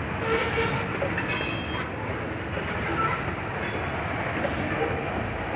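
Freight train of tank cars rolling past with a steady rumble of wheels on rail, and brief high-pitched wheel squeals about a second in and again near four seconds.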